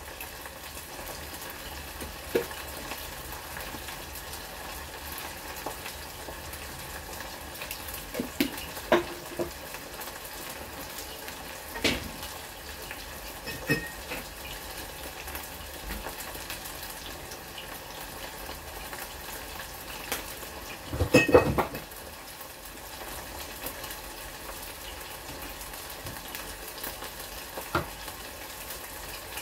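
Pork ribs frying in a saucepan of bubbling oil: a steady sizzle, broken by a few short sharp clicks and knocks, the loudest cluster about two-thirds of the way through.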